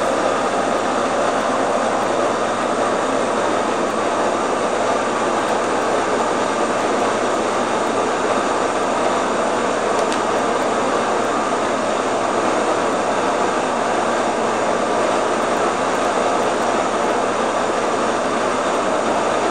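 Electric grain mill running steadily in the background, grinding wheat into flour: an even, loud mechanical hum and grinding noise with no change.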